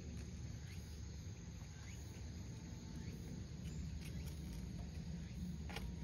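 Quiet outdoor background: a steady low rumble with a scatter of faint small clicks and a few faint short high chirps.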